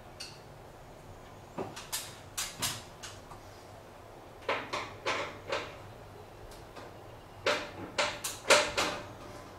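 Short clicks and knocks of hands working at the metal wiring box under a ceiling-mounted electric garage heater, coming in three clusters.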